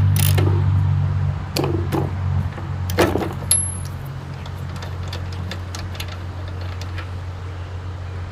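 A few sharp metallic clicks and clinks, as of tools being handled on a small engine, over a steady low hum that drops off after about two seconds.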